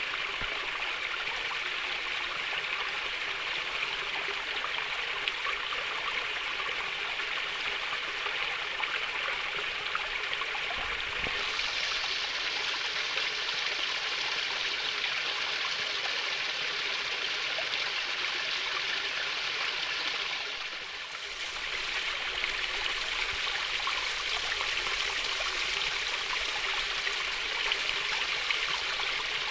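Shallow stream water babbling and trickling steadily. It turns a little brighter about eleven seconds in and dips briefly about two-thirds of the way through.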